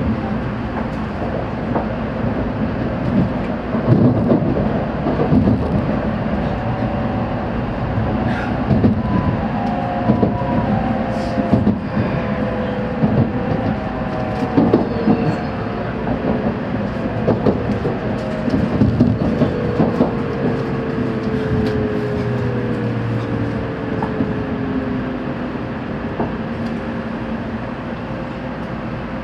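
Interior running noise of a Shinkansen bullet train heard from inside a passenger car: a steady rumble of wheels on rail with scattered clicks, and an electric motor whine that falls slowly in pitch through the middle, as the train slows down.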